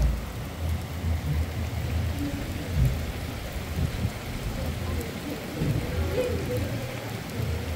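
Hailstorm: heavy rain and hail falling steadily, with uneven low rumbles underneath.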